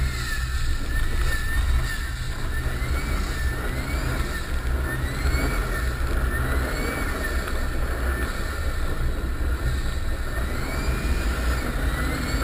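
Nissan Patrol Y60's 2.8 turbo-diesel straight-six running under load with its turbocharger whistling, the whistle rising and falling in pitch again and again, about once every second or so, as the throttle works, over a steady low engine rumble.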